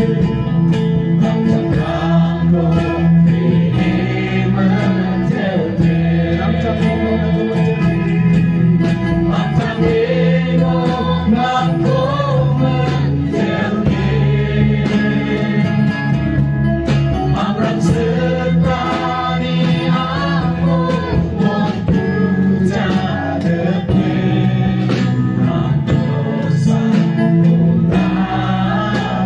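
A live worship band performing a Christian song: a mixed group of men and women singing together into microphones over acoustic guitar and band accompaniment.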